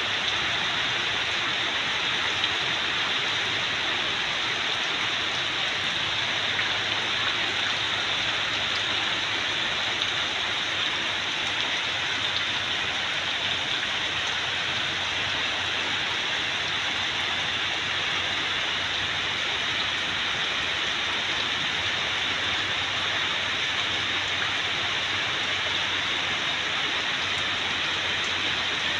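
Heavy rain pouring steadily onto leaves and wet ground, an even hiss with no breaks or gusts.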